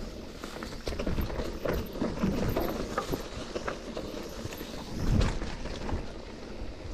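Mountain bike rolling fast down a rough dirt trail: tyres crunching over dirt and stones while the bike rattles and knocks on the bumps, with a heavier jolt about five seconds in.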